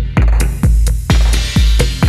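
Electronic background music with a steady kick-drum beat, a little over two beats a second.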